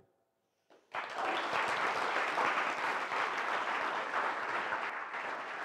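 Audience applauding, starting about a second in after a moment of quiet and tapering slightly near the end.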